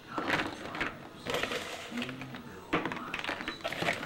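Large hailstones clicking and knocking against each other in a container as a hand moves them, in irregular clattering bursts.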